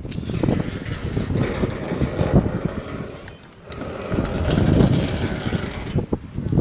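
Vehicle and wind noise that swells and fades unevenly, dropping away briefly about halfway through before building again.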